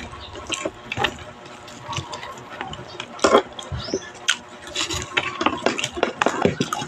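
Eating a cooked mud crab: a fork and spoon clicking and scraping against the plate and the crab's shell at irregular moments, with chewing in between.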